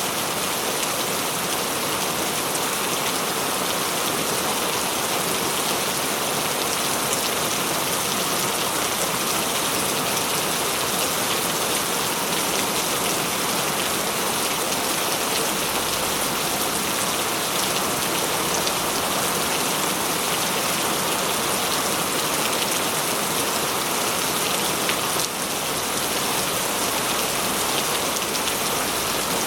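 Heavy rain falling steadily, a dense hiss of many drops hitting a surface.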